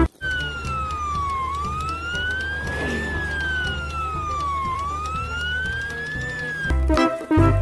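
Electronic wail siren, its pitch sweeping slowly down and back up about every three seconds over a steady low hum, then cutting off shortly before the end.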